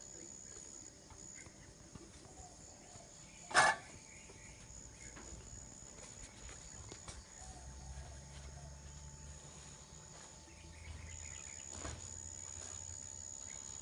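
Insects droning steadily at a high pitch over the outdoor background. One sharp, loud crack about three and a half seconds in, and a low rumble for a few seconds around the middle.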